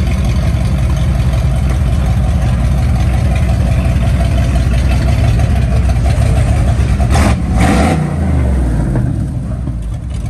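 Loud car exhaust rumbling steadily at a low pitch. About seven seconds in comes a brief burst of noise, then the engine note falls away and the sound gets a little quieter.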